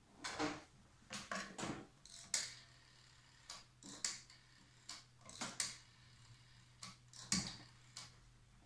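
Old black desk telephone being picked up and handled: a series of sharp clicks and knocks, several in small quick clusters, with a low steady hum from a couple of seconds in.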